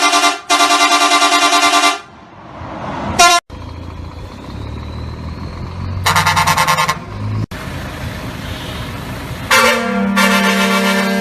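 Vehicle horns sounding in a series of short clips. The first is a loud blast of about two seconds with a brief break near its start, followed by a short toot. After an abrupt cut comes a low engine rumble with another blast about six seconds in. After a second cut, a long horn starts about nine and a half seconds in, its tones falling slightly in pitch.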